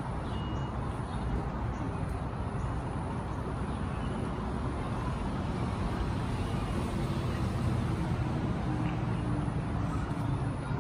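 Diesel engine of a parked Scania fire truck idling steadily, a low rumble that grows a little louder about seven seconds in.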